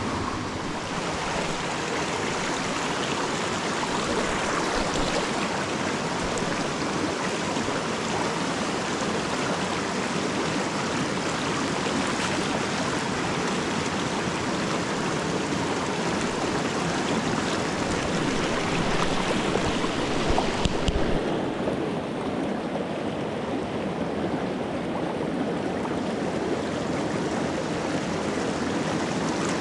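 Small mountain stream rushing steadily over rocks and through riffles. About 21 seconds in there are a few sharp bumps, after which the rush sounds duller.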